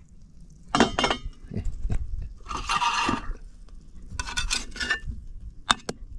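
Metal spatula scraping and clinking against a stainless steel bowl as sausage patties are turned over. It comes in several short bouts of scrapes and clinks, with the longest scrape about halfway through.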